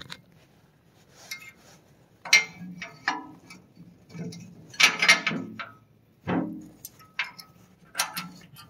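Steel clinking and rattling on a tractor box blade as a scarifier shank is fastened back in place. It comes as a handful of separate clanks and scrapes at uneven gaps, the loudest about halfway through.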